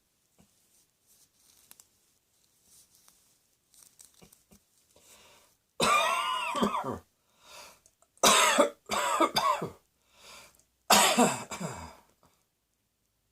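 A person coughing four times: one long cough about six seconds in, a quick pair around eight to nine and a half seconds, and one more about eleven seconds in, with quiet breaths between.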